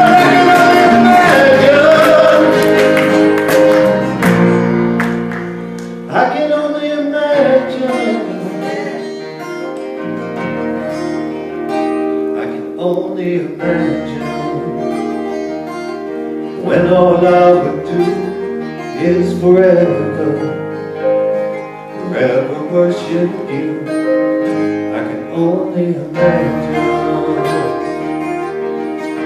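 Live acoustic band playing: strummed acoustic guitar, electric bass and cajón, with a man's wordless singing over it, holding one long note in the first two seconds.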